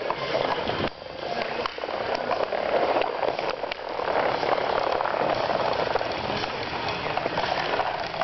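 Inline skate wheels rolling over a plastic tiled roller-rink floor: a steady rattling rumble with many small clicks.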